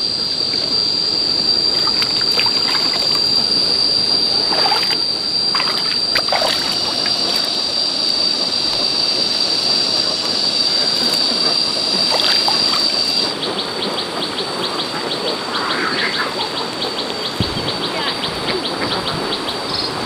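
Water splashing and trickling, with a steady high-pitched whine that turns into a rapid, even ticking about two-thirds of the way in.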